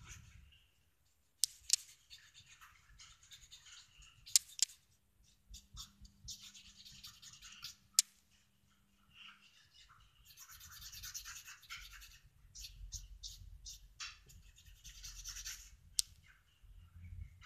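A cotton bud scrubbing across the surface of a flat bauble to blend in coloured pencil, in scratchy bursts of rubbing, with a few sharp taps among them.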